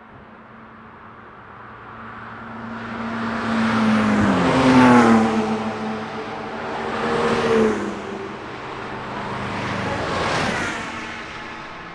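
Cars driving past at speed one after another: three pass-bys, the first and loudest about five seconds in, then two more a few seconds apart. Each engine note drops in pitch as the car goes by.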